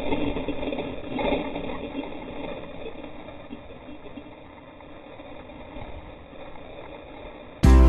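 Muffled rush of whitewater through a waterproof action-camera housing, a steady noise with a few faint knocks that slowly fades. Music cuts in loudly near the end.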